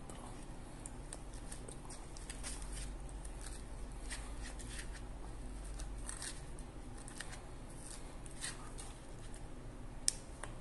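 A metal spoon scraping and clicking against a paper takeout box as it cuts and scoops soft sauced food, a run of light scrapes with one sharper click near the end.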